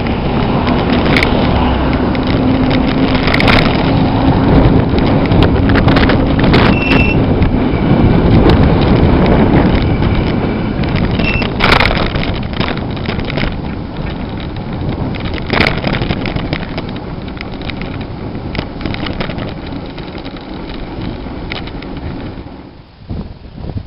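Wind rushing over the microphone and tyre noise from a bicycle coasting without pedalling, with scattered knocks and rattles over bumps in the road and a couple of short squeaks. The noise drops away near the end.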